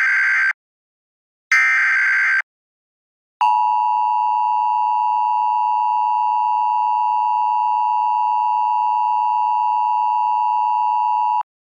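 Emergency Alert System header and attention signal. The tail of one SAME data burst and then one more burst of about a second, then the steady dual-tone EAS attention tone, which starts about three and a half seconds in, holds for about eight seconds and cuts off sharply.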